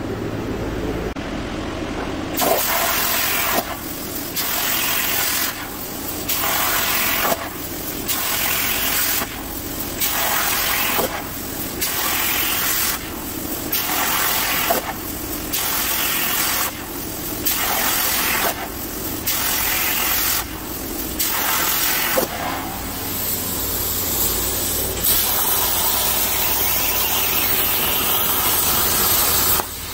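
Everlast 82i plasma cutter's torch on a CNC plasma table, cutting steel with a loud hiss. The arc fires for about a second and a half, stops for a moment, then fires again, about a dozen times over as it cuts a row of small holes, with a short click at the start of each cut. Near the end it runs on in one longer, unbroken cut.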